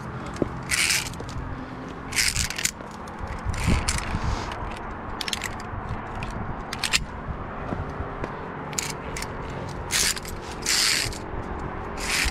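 A climber's movement noise on via ferrata rock, picked up by a body-worn camera: a short hissing scrape every second or so, with a steady low rumble underneath.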